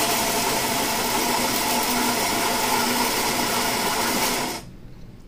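Philips Carina 1200 superautomatic espresso machine's built-in grinder grinding beans for an espresso shot: a steady, a little loud grinding noise that stops abruptly near the end.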